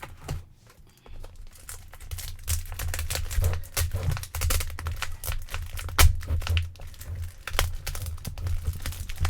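Plastic embossing folders and paper being handled: irregular rustling, crinkling and light clicks, with dull knocks on the table.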